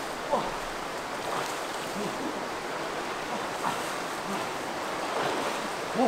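Steady rush of river water, with a few short calls heard over it.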